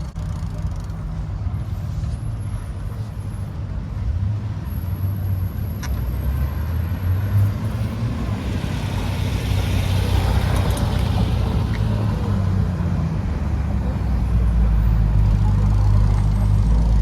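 City street traffic: vehicles passing over a steady low rumble, one passing close and swelling then fading about halfway through.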